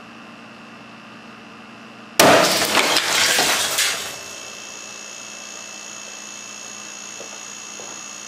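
A glass wine bottle pressurised with air to about 260 psi bursts about two seconds in with a sudden loud bang, followed by about two seconds of shattering glass as fragments scatter and strike the plexiglass safety shield and enclosure. The air compressor hums steadily before and after the burst.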